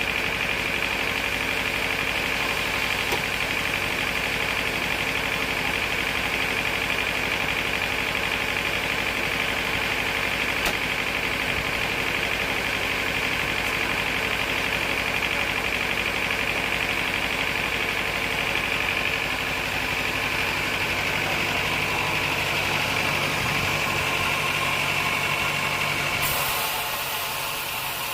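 Sawmill machinery running steadily: a constant motor drone under a steady high whine. About 26 seconds in the low hum drops away and the sound thins.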